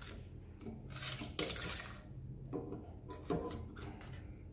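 Crème anglaise being stirred in a stainless steel saucepan, heating toward 80 °C: a few separate scraping, rubbing strokes against the pan.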